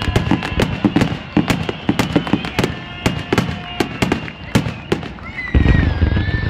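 Fireworks display: aerial shells bursting overhead in a rapid, irregular run of sharp crackling pops. A deeper, heavier burst comes near the end, with a high whistling tone gliding down over it.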